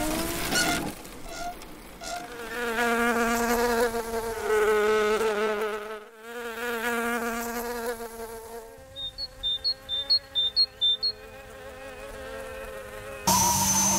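Cartoon ladybug flight buzz: a stylised humming drone of wings, wavering slightly in pitch. Partway through it drops back and a run of about eight short, high chirps sounds. Near the end a louder buzz cuts in suddenly.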